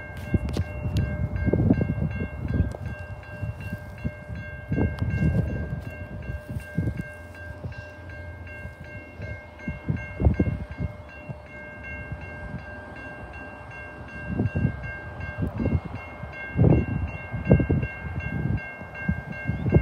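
Diesel freight train led by TasRail TR class locomotives approaching from a distance, its low rumble mixed with irregular gusts of wind buffeting the microphone. A steady high-pitched ringing tone sounds throughout.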